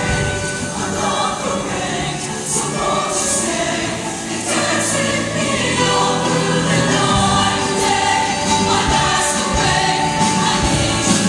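A show choir singing in full harmony over instrumental accompaniment, with a sustained bass line and cymbal splashes.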